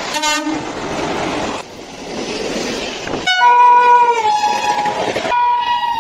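Indian Railways WAP-7 electric locomotive's horn and the rush of a passenger train running through a station at speed. A short horn blast comes at the start, then a few seconds of rushing wheel and coach noise. From about three seconds in the horn is held for about two seconds, its pitch dropping partway as it passes, and it sounds again near the end.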